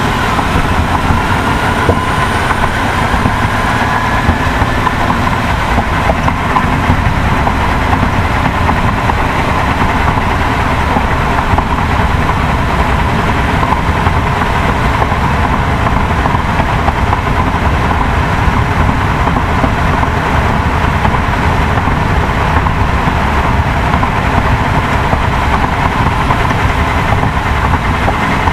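Motor vehicle engine running steadily with a dense, even noise that is heaviest in the low end, and a faint rising whine during the first few seconds.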